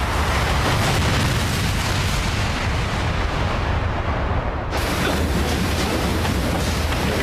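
Sound effects for the reactor explosion: a loud, continuous rumbling roar. Its hiss dies away, then a sudden fuller blast comes in about four and a half seconds in.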